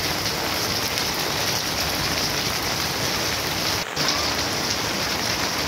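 Steady rain falling on wet paving, puddles and garden plants, a continuous even hiss; the sound drops out for an instant about two-thirds of the way through.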